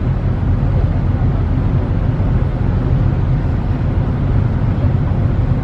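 Steady low rumble of a ship under way, heard from on board, with no distinct events.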